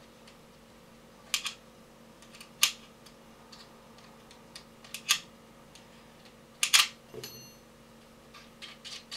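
Sharp metallic clicks and taps, a handful of them at irregular intervals, as an Allen key and small steel screws are worked loose from the RIS rail of an airsoft rifle.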